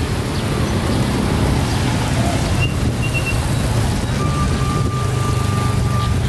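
Steady low rumble of passing road traffic. A thin, steady high tone holds for about two seconds near the end.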